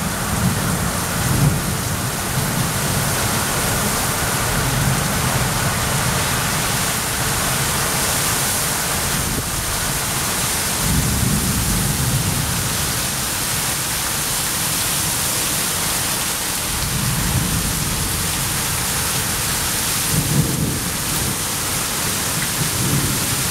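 Torrential rain pouring down in a severe windstorm, gusts of over 90 km/h. Strong wind gusts come through as low rumbles that swell and fade every few seconds.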